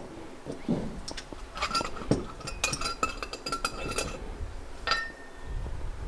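Small pieces of scrap metal clinking and clattering as they are handled and dropped into a container, with a dense run of clinks in the middle and a single ringing clink near the end.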